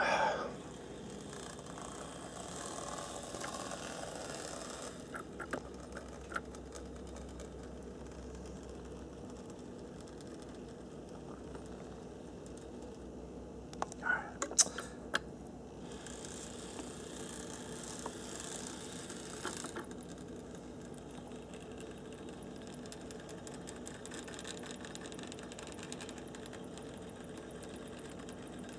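HO-scale brass model 4-6-2 steam locomotive running on its track: its small electric motor and gearing give a steady mechanical whirr. A few light clicks sound about five seconds in, and a short cluster of louder clicks about halfway through.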